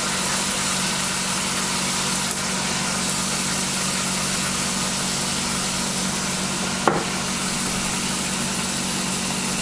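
Seasoned chicken breast pieces sizzling in oil in a nonstick frying pan, a steady loud sizzle with a low hum beneath it; the burner is set a little too high. A short knock comes about seven seconds in.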